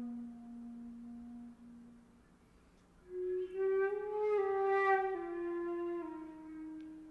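Solo flute playing a slow line low in its range: a long low held note that fades away about two seconds in, a short pause, then a phrase that rises and swells to its loudest around five seconds in before stepping back down and fading near the end.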